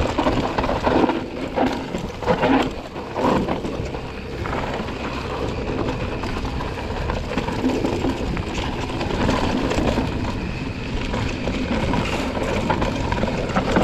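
Mountain bike descending a rocky dirt trail: tyres rolling over loose gravel and rock under steady wind noise on the microphone. The bike rattles and knocks over bumps, most sharply in the first few seconds.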